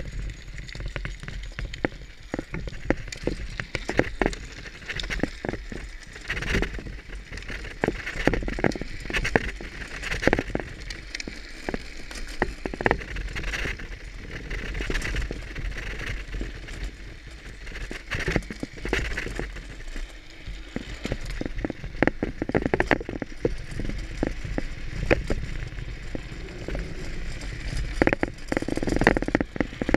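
Wind rumbling on the microphone under constant, irregular rattling and crackling from wheels rolling and scraping over pavement on a drift-trike run. No engine is heard.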